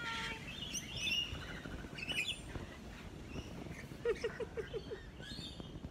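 Rainbow lorikeets calling: a scatter of short, sharp screeches and chirps from several birds, with a quick run of about six short notes about four seconds in.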